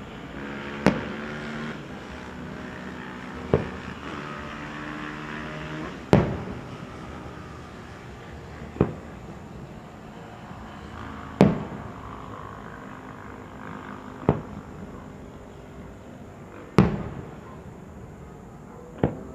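Aerial firework shells bursting: eight sharp bangs spaced about every two and a half seconds, each trailing off in an echo.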